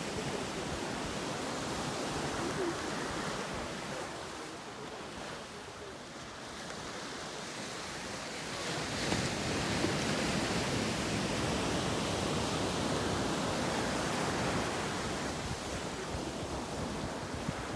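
Ocean surf breaking and washing up a sandy beach, a steady rushing that swells louder from about halfway through.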